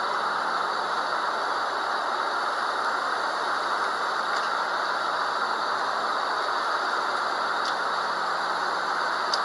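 Steady rushing drone of a private jet's cabin, the even noise of air and engines heard from inside, with a low steady hum under it. A few faint clicks come through, about halfway and near the end.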